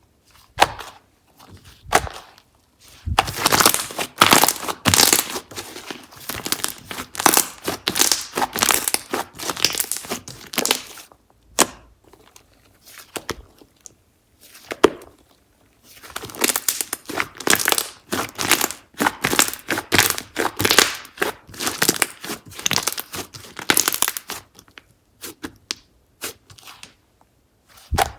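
Slime being squeezed and pressed by hand, giving dense crackling and crunching in long stretches with short pauses between.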